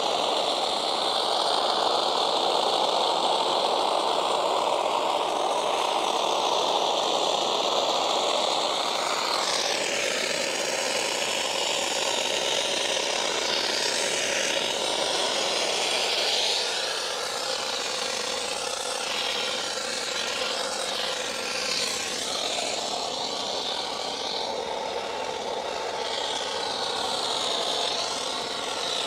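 Kärcher SC 4 EasyFix steam cleaner hissing steadily as steam jets through its round bristle brush while it is scrubbed over a car door card. The hiss shifts in character about ten seconds in.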